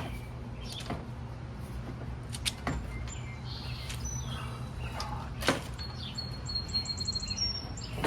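Small birds chirping, with a short trill in the second half, over a steady low hum. A few sharp clicks and knocks are scattered through it, the loudest about five and a half seconds in.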